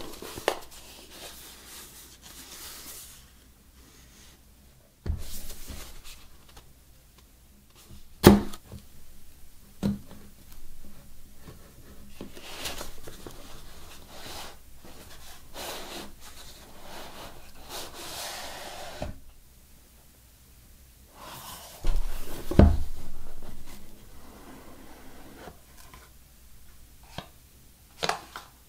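A cardboard smartphone box handled with knit gloves: rubbing and scraping of cardboard as it is turned and its lid slid off, with a few sharp knocks of the box on the table, the loudest about 8 and 22 seconds in.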